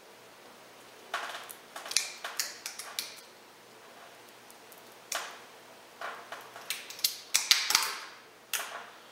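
Metal clicking and clinking as a bearing cover plate is wiggled loose and slid along a press brake's flywheel shaft. The clicks come in two bursts, the second one longer and louder.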